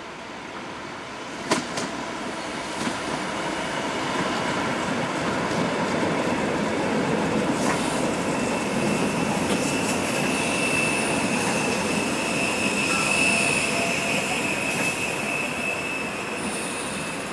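Tyne and Wear Metrocar (Class 994) electric train running in along a station platform, its rumble growing louder as it passes. A sharp click comes about a second and a half in, and a steady high-pitched squeal from the wheels and brakes sets in about halfway through.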